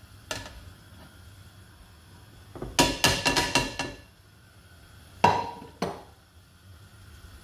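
Ceramic plate clinking and tapping against the rim of an aluminium pressure cooker as spices are shaken off it into the lentils. There is one click at the start, a quick run of clinks near the middle, then two sharp knocks.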